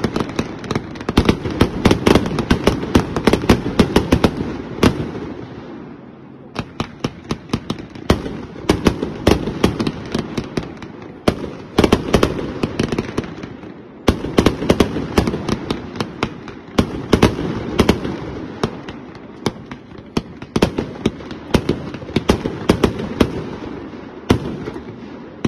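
Happy Family Pro Line 1.4G compound fireworks cake (180 shots over four chained cakes) firing a rapid barrage of shots, a dense string of sharp cracks and bangs. The barrage thins briefly about a quarter of the way in and again about halfway through.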